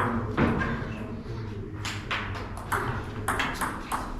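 Table tennis ball knocking off rackets and table during rallies: a string of sharp, light clicks at uneven spacing.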